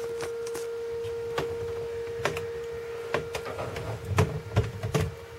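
A steady high-pitched hum on one tone, with a few soft clicks and a low rumble about four to five seconds in.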